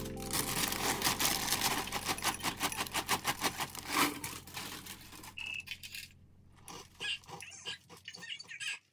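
Plastic packaging crinkling and crackling rapidly as a bag is handled, loudest about four seconds in. It is followed by lighter, scattered clicks of a spoon against a small ceramic bowl.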